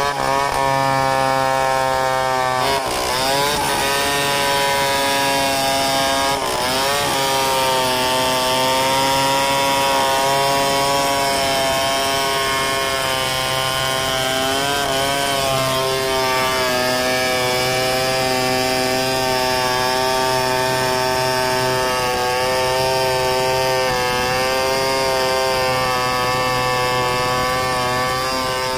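Two-stroke chainsaw running at full throttle, ripping lengthwise through a mahogany log in a freehand milling cut. The engine note is steady, and its pitch sags briefly a few times as the chain is loaded in the cut.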